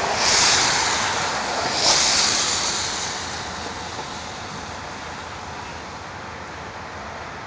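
Amtrak passenger coaches rolling slowly past on yard track, a steady rushing rail noise. It swells louder twice in the first three seconds, then eases to a lower steady level.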